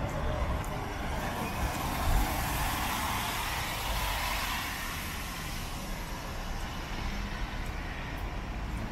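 A motor vehicle passing on a wet road: tyre hiss swells over the first few seconds and then fades away, over a steady low traffic rumble.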